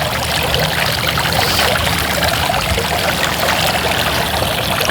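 Water splashing and trickling steadily down an outdoor fountain over six feet tall, a continuous sound like a running creek.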